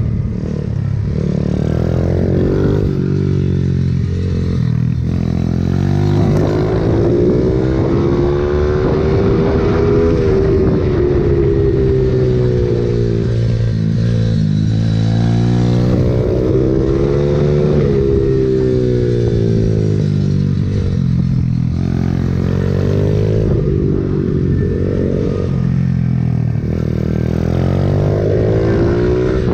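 Pit bike's single-cylinder engine at speed on track, its revs climbing and dropping again and again as the rider accelerates out of corners and backs off into them.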